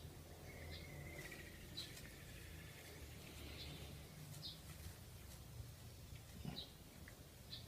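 Faint short, high chirps repeating irregularly about once a second, like small birds calling, over a low steady hum.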